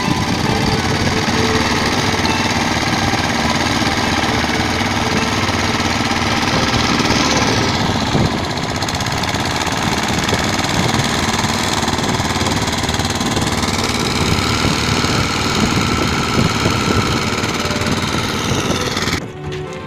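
Small long-shaft outboard engine driving a river ferry pontoon, running steadily with a dense rapid chugging. Its sound shifts a little about eight seconds in and cuts off suddenly near the end.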